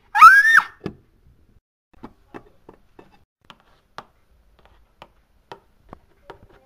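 A short, loud squeal that rises and then falls in pitch, right at the start. It is followed by light, irregular taps and knocks of plastic Schleich toy figures being moved and set down on a surface, about two a second.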